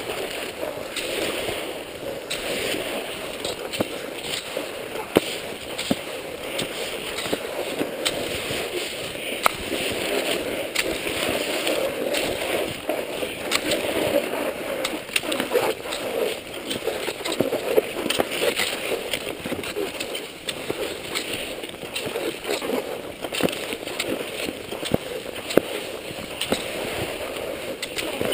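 Classic cross-country skis sliding and scraping along groomed tracks in snow, a continuous uneven hiss, with frequent sharp clicks from the ski poles planting.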